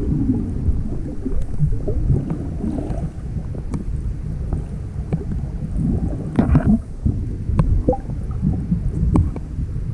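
Water noise picked up by a camera held underwater: a muffled low rumble with scattered sharp clicks, and a louder burst about six and a half seconds in.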